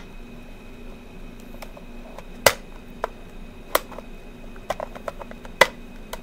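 Sharp clicks and snaps of small hard plastic pieces being handled and pushed together, a few loud ones spread a second or two apart with smaller ticks between, over a steady low hum.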